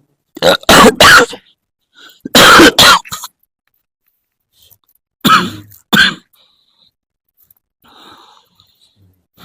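A person coughing hard in three fits a couple of seconds apart, each of two or three harsh coughs.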